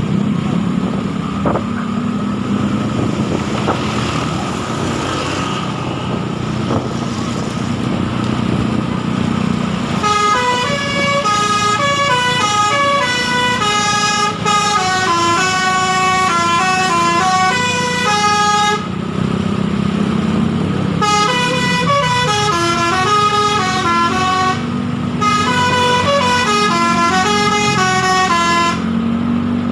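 Telolet multi-tone horn on a Bris Trans bus playing a tune note by note, in two runs with a pause of about two seconds between them. For the first ten seconds only the bus's engine is heard running under a steady hum.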